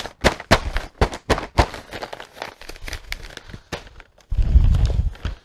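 Brown kraft wrapping paper crinkling and crackling as it is folded and creased by hand over the end of a rolled rug, with a dull, low thump lasting about a second near the end.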